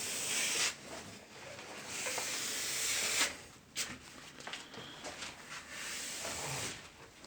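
Quiet rubbing strokes over a solid surface, three drawn-out hissing passes with faint clicks between them.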